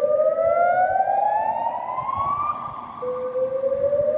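Loud hotel fire alarm sounding a slow whoop: a tone that rises steadily from low to high, holds briefly, then starts again from the bottom about three seconds in. It is the evacuation tone of a voice-alarm system, signalling that the building must be evacuated.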